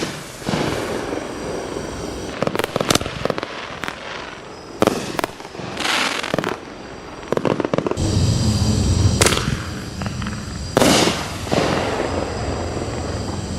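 1.75 inch ball shell cake firing: a series of sharp bangs a second or two apart as the shells go off, with crackling trails fading after some of them. A low rumble runs under the later shots.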